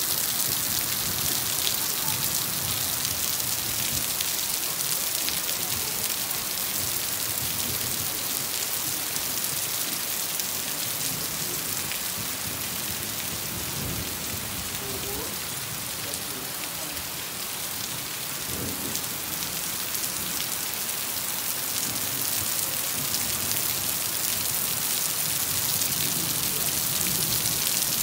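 Steady rain falling on concrete paving, an even, continuous hiss of drops, a little softer midway.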